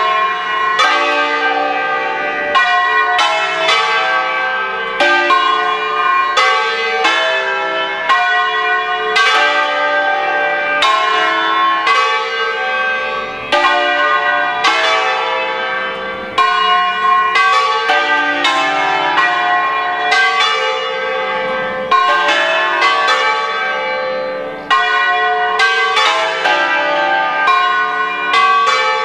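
A ring of five Ambrosian-system church bells in D-sharp, cast by Bianchi, swinging full circle and ringing together in a continuous peal (a distesa), strike after strike overlapping.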